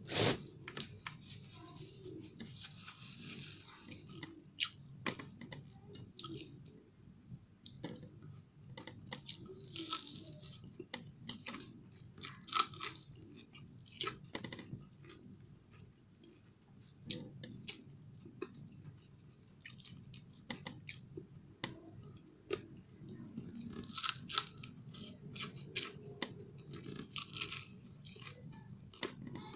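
A person chewing and crunching crispy fried fish, with irregular crisp crunches throughout. The sharpest crunch comes right at the start.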